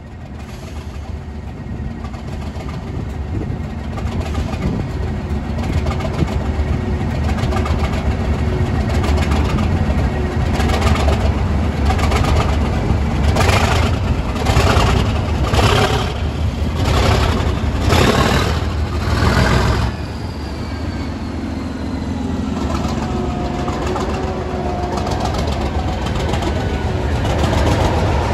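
Class 37 diesel locomotive's English Electric V12 engine starting up and building. It runs rough, with loud pulses roughly once a second through the middle, then settles to a steadier idle.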